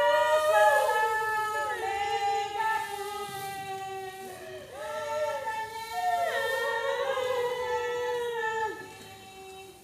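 A high female voice singing long, held notes that slide from one pitch to the next, with no instruments heard. It breaks off briefly about four and a half seconds in and fades near the end.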